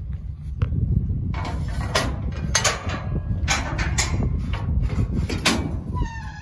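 Metal clanks and rattles of a livestock trailer's steel gate latch being worked and the gate swung open, over a steady low rumble. Just before the end, a short, falling animal whine.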